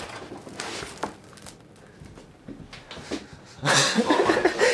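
Scissors cutting stiff tar paper: a few short crackles and snips of the paper. About three and a half seconds in, loud laughter takes over and is the loudest sound.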